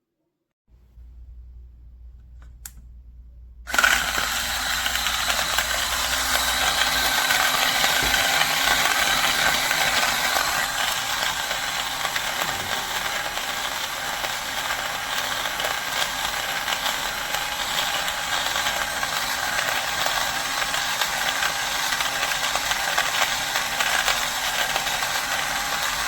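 Portable battery-powered burr coffee grinder running, its burrs grinding coffee beans in a steady, loud grating whir. A click about two and a half seconds in, then the grinding starts about a second later.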